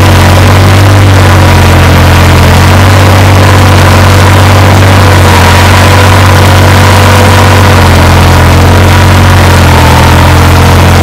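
New Holland 3630 tractor's diesel engine, fitted with a modified injection pump and turbo, running loud and steady at a constant speed.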